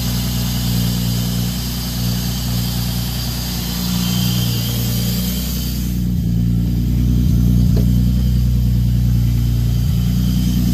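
1997 Toyota Supra's turbocharged inline-six, fitted with a single S366SXE turbo and 3-inch downpipe and exhaust, idling steadily after a cold start. A high hiss fades about six seconds in, leaving the low, even idle, with a few faint knocks near the end.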